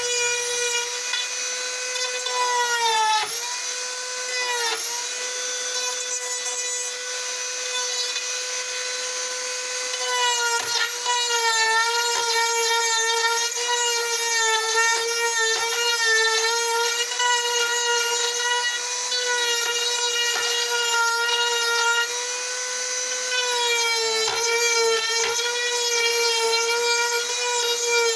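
High-speed rotary carving tool running steadily with a high whine while cutting into wood. Its pitch sags briefly each time the bit bites harder, about three and five seconds in and again around twenty-four seconds in.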